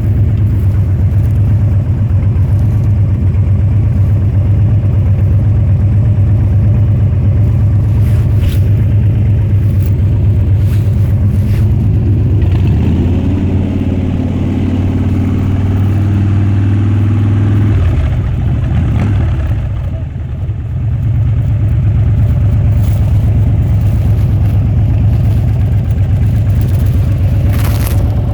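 Harley-Davidson Dyna Switchback's V-twin engine and exhaust running under way, a loud, steady low note. Partway through the pitch shifts, and about twenty seconds in the throttle is briefly rolled off and the engine dips before pulling again.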